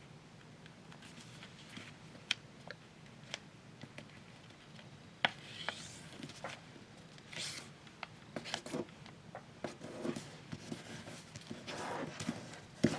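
A sheet of paper being handled and folded by hand: scattered crisp ticks and short rustles as it is creased, the sharpest tick about five seconds in, with the rustling getting busier toward the end.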